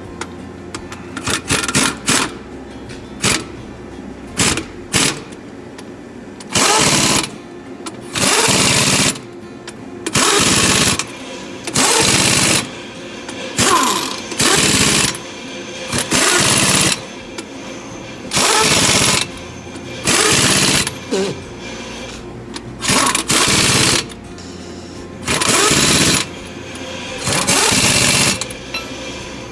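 Pneumatic wrench running flywheel bolts down on a truck engine: about a dozen bursts of roughly a second each, with a few short blips in the first few seconds, the bolts being snugged before torquing.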